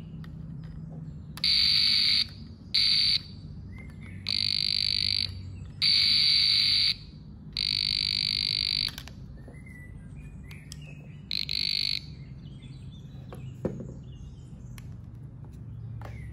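Aneng VD806 non-contact voltage tester pen's buzzer beeping as its tip touches a live socket contact: six steady, shrill tones of uneven length, up to about a second each, with short gaps between them. The beeps signal that the pen is detecting mains AC voltage.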